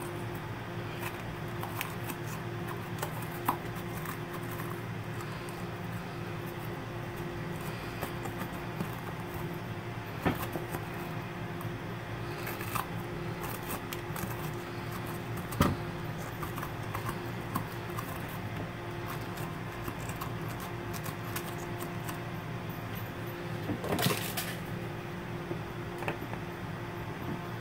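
A steady, low electrical hum of a kitchen appliance, with a few sharp clicks and knocks of a kitchen knife against a plastic cutting board while a red bell pepper is cored and its ribs are cut out.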